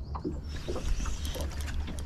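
Water lapping and slapping irregularly against the hull of a small fishing boat, over a steady low rumble of wind on the microphone; a hissing rush of wind and water comes in about half a second in.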